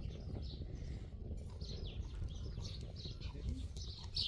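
Small birds chirping repeatedly, short high calls over a steady low rumble.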